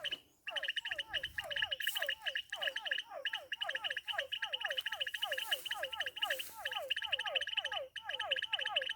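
A chorus of frogs calling: a fast run of short notes, about four a second, over a steady high trilling.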